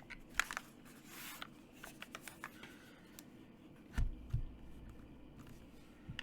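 A few scattered keystrokes on a Keydous NJ68 mechanical keyboard with Kinetic Labs Salmon switches and stock doubleshot ABS keycaps, with a short rustle early on and two deeper thocks about four seconds in.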